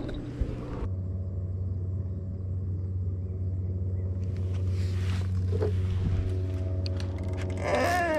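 An engine running steadily at an even pitch, a low hum that starts abruptly about a second in.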